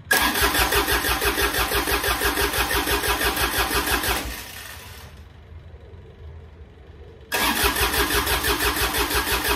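Starter cranking the rebuilt Yanmar 3TNA72 three-cylinder diesel of a John Deere 755 without it firing, the injector lines cracked open to bleed air from the fuel system. There are two spells of cranking with an even pulsing beat, about four seconds each, the second starting about three seconds after the first stops.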